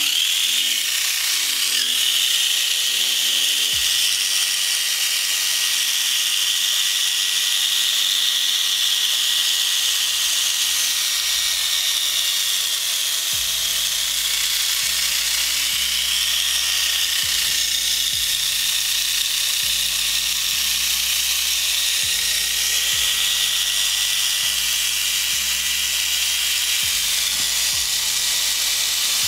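Auldey Ray Stinger mini 4WD car's small electric motor and gear drive running flat out while the car is held in the hand: a steady high whine with a hissy, rattly edge. It sounds a bit rough.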